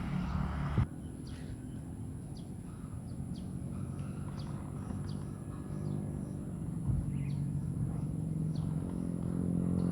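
Short bird chirps scattered over a steady low hum, outdoors in the countryside. Just under a second in, a louder rushing noise cuts off with a click.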